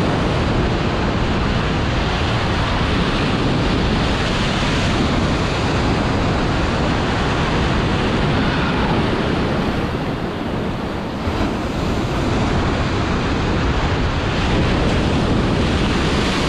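Heavy surf breaking and washing on the shore, with strong wind buffeting the microphone; a steady, loud rush of noise that eases slightly around ten seconds in.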